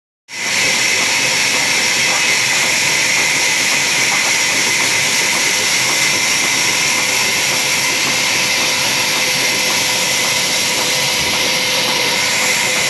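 Sawmill saw machine running steadily, a loud even hum with a strong hiss over it.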